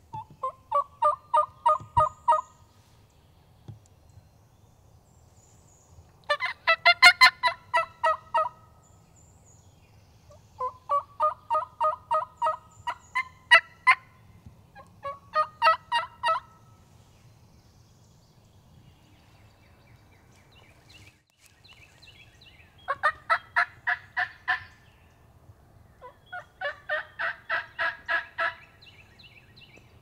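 Mouth-blown crow locator call, sounded in six strings of rapid caws, each about two seconds long at roughly four or five caws a second. It is blown to shock a gobbler into answering.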